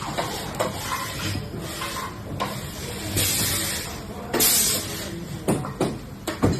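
Scattered knocks and clicks of objects being handled, with two short hissing or scraping sounds past the middle.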